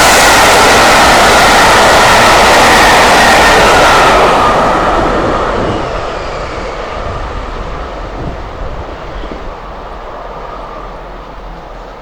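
Loud rushing wind roar that dies away after about four and a half seconds into a quieter, duller rumble.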